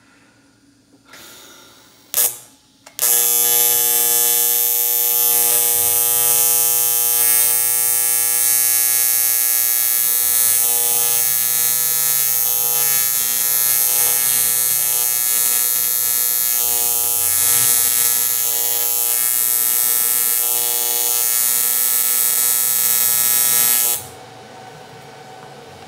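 A TIG welder's arc buzzing steadily and loudly for about twenty seconds as a fitting is welded onto an aluminium radiator, then cutting off suddenly. The arc runs on AC, as aluminium is welded. A short sharp crackle about two seconds in comes just before the arc settles into its buzz.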